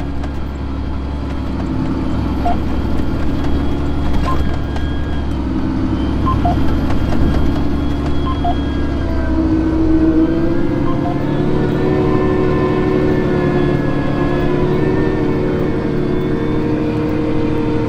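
Fendt 1167 Vario MT tractor running steadily under load, heard from inside its cab. About ten seconds in, its tone shifts, with several wavering hum lines.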